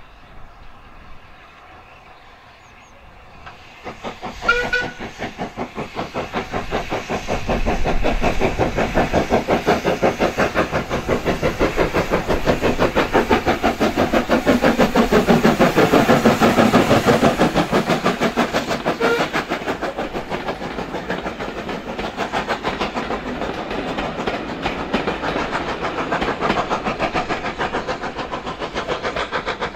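Metropolitan Railway E Class No. 1, an 0-4-4 steam tank locomotive, working a train. A brief whistle note sounds about four seconds in, then comes the rapid, even beat of its exhaust, which grows louder as the engine passes and then eases off.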